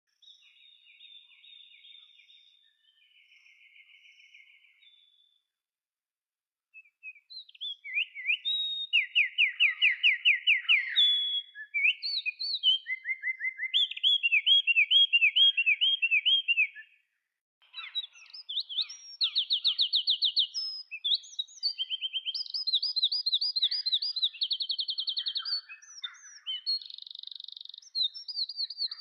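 A songbird singing: fast, high trills and rapid repeated notes in varied phrases. It starts with two faint trills, falls silent for about two seconds, then sings louder and keeps going in runs with short pauses.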